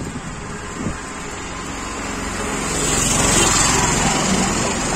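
Small motor vehicle engine running on the road, growing louder from about two seconds in as it draws close.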